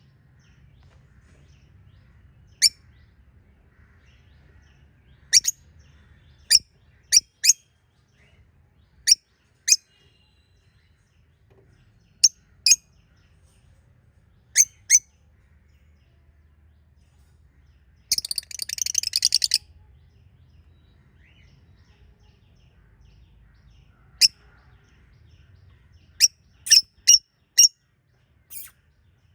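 Pet budgerigars giving short, sharp, high chirps, some single and some in quick runs of two or three, with a rapid scratchy chatter lasting about a second and a half a little past the middle.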